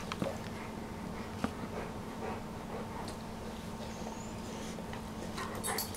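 Two dogs licking each other's faces: soft, scattered wet licking and smacking sounds over a steady low hum, with a few sharp clicks near the end.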